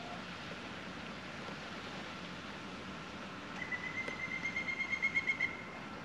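A bird calling over a steady background hiss: about three and a half seconds in, a fast run of clear, evenly pitched notes, about seven a second, that grows louder for some two seconds and then stops.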